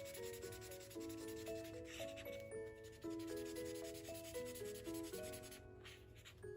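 Soft instrumental background music with a steady melody, over the scratchy rubbing of colouring strokes on paper that come and go in short passes.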